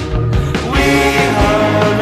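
Background rock music with a steady drum beat and sustained chords.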